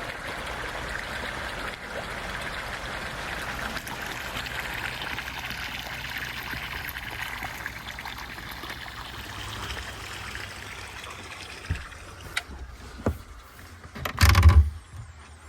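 Water trickling steadily, fading out after about ten seconds. Then a few sharp clicks and, near the end, a short loud knock.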